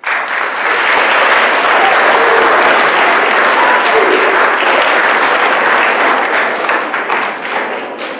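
Audience applause from a large crowd, starting suddenly and fading away near the end.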